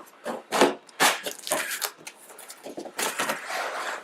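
Cardboard packaging being handled and pulled out of a shipping box: irregular scraping and crumpling in several short bursts.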